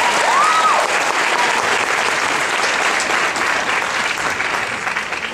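Audience applauding, with a short rising-and-falling whistle from the crowd in the first second. The clapping thins toward the end.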